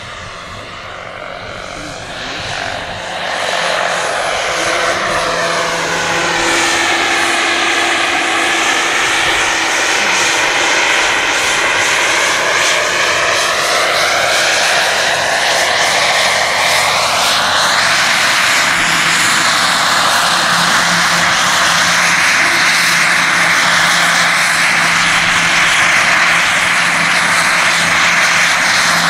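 Large-scale radio-controlled AS350 Écureuil model helicopter flying in and hovering low: a steady rotor and drive whine with a slowly sweeping, phasing character. It grows louder over the first few seconds as the model comes closer, then holds steady.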